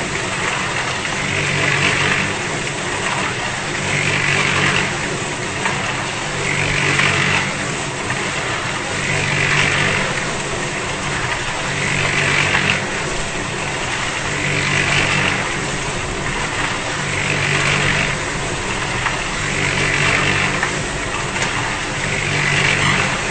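Concrete mixer running, its drum turning with a regular swell in the sound about every two and a half seconds.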